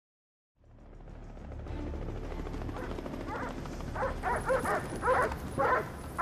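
German shepherd police dogs barking in a rapid series of sharp barks, starting about three seconds in and growing louder. Beneath them a low rumble fades in about half a second in.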